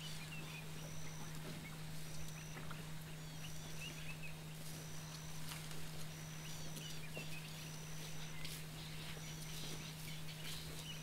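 Bush ambience: a short, high, even-pitched call repeating about once a second, with scattered short chirps and a few sharp snaps, over a steady low hum.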